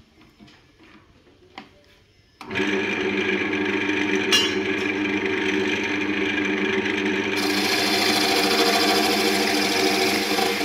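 Wood lathe switched on about two seconds in, its motor then running with a steady hum. About seven seconds in, a hiss joins as a hand-held tool works the spinning coconut wood.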